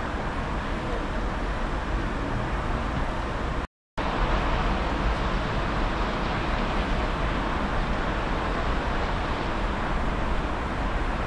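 Steady rushing noise of a thunderstorm's wind and rain, with uneven low rumble. It drops out abruptly for a moment about four seconds in.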